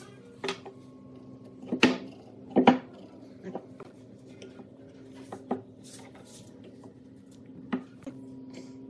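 Hand tools being handled on a wooden workbench: about five scattered sharp clinks and knocks over a steady low hum.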